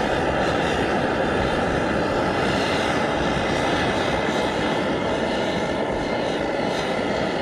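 MSR Dragonfly multi-fuel stove turned up to full flame, its pressurized burner making a steady hissing rush.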